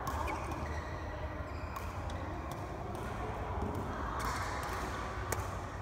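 Indoor badminton court sounds: a few scattered sharp smacks of rackets on a shuttlecock, the loudest about five seconds in, over a steady low hum from the hall.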